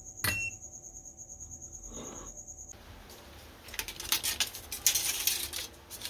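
Thin copper strip crinkling and crackling as it is handled and flexed, a rapid run of sharp metallic clicks in the second half. Before that, a steady high-pitched electronic whine with a click and a short beep just after the start, which stops before the middle.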